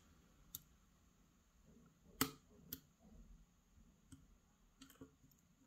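Faint, scattered clicks of a steel lock pick probing the wafers inside a Bricard Supersureté à bille wafer lock, searching for its last, interactive element; the loudest click comes a little past two seconds in.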